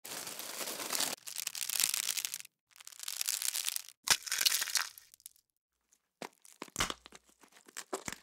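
Crisp chips crackling and crunching as a hand presses them into a sub roll on its crinkly paper wrapper, in several bursts of rustling and snapping, then a few sparse crackles near the end.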